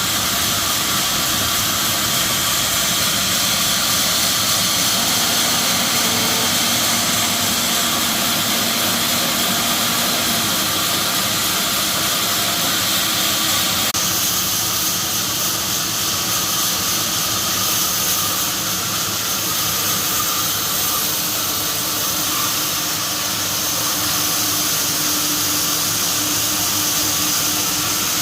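A power tool or workshop machine running steadily with a loud hiss. The sound changes abruptly about fourteen seconds in.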